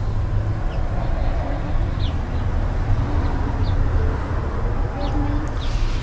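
Steady low rumble of wind buffeting the microphone outdoors, with a few short, high, falling chirps of small birds scattered through it.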